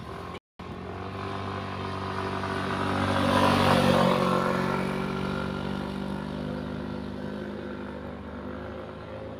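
Motorcycle engine passing on the road: it grows louder, is loudest about four seconds in, then slowly fades away. The sound cuts out for a split second near the start.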